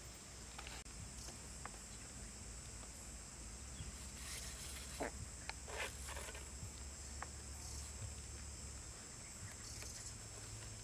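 Steady high-pitched insect chorus, crickets or cicadas, with a few faint ticks and rustles about halfway through from hands winding and knotting nylon string around a green stick.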